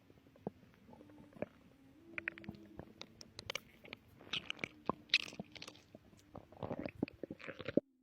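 A pregnant woman's stomach gurgling, heard close up: an irregular run of wet pops, clicks and crackles that grows denser in the second half, then cuts off suddenly just before the end.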